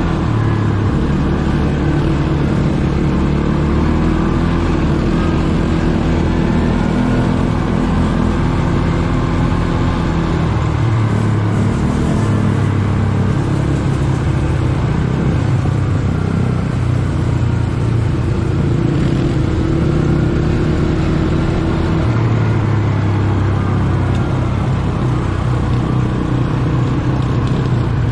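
ATV engine running steadily while riding, its pitch shifting up and down a few times with the throttle.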